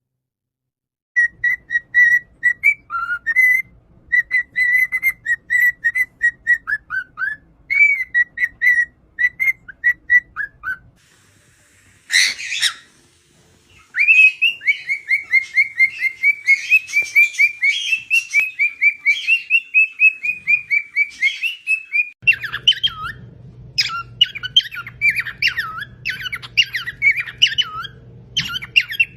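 Pet parrots chirping and whistling in quick runs of short calls, with one loud harsh burst about twelve seconds in. Near the end the chirping goes on over a low steady hum.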